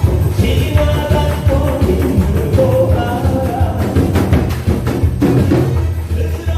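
Loud music with a steady bass beat and percussion, a melody line running over it.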